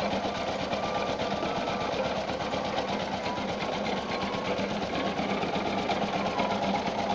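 Motor-driven sugarcane juice roller mill running steadily, its drive and steel rollers making a rapid, even mechanical chatter.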